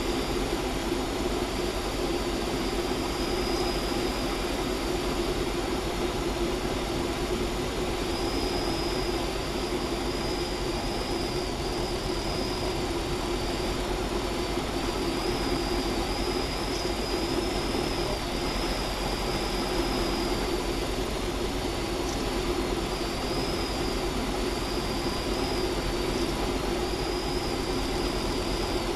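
Diamond HK36 Super Dimona motor glider's piston engine and propeller running steadily at a constant note, with a thin high whine that comes and goes.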